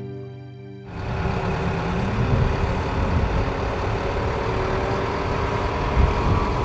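A harmonica tune dies away, and about a second in a mobile crane's engine comes in, running steadily with a low rumble.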